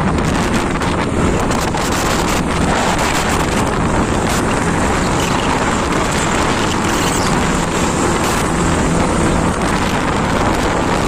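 Heavy wind rush buffeting the microphone on a moving motorcycle, with the engine and road noise steady underneath.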